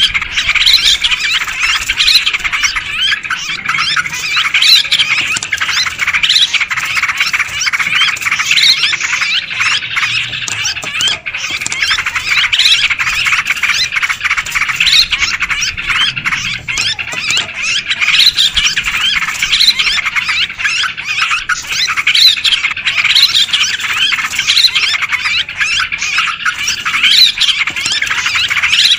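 A flock of yellow-vented bulbuls chattering at once: a dense, unbroken tangle of short, overlapping chirping calls. This is the noisy flock sound used as a lure call to draw in wild bulbuls.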